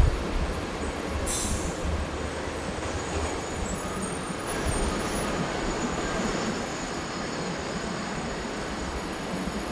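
Boeing 747-8's four GEnx jet engines running at taxi power: a steady rush of noise with thin, high whining tones above it. A short bump comes right at the start, and a brief high hiss about a second in.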